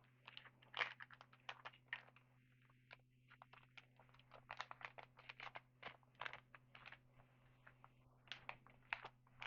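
Trading cards being handled and flicked through by hand: a quiet, irregular run of small dry clicks and crackles of card stock and wrapper.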